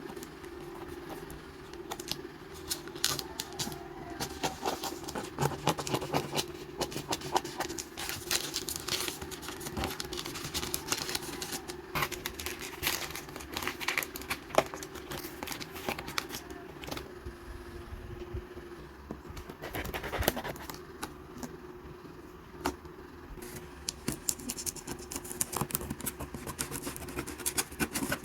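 Cosmetics packaging being handled and opened by hand: cardboard boxes and plastic wrappers crinkling, tapping and scraping in quick irregular clicks, over a faint steady hum.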